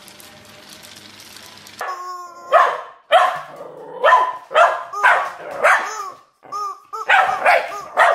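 Corgi puppy barking excitedly at a yellow rubber chicken toy: a quick run of about a dozen sharp barks and yips. Just before the barking, about two seconds in, comes a short held squawk from the rubber chicken being squeezed. Under the first two seconds there is only a faint steady hiss.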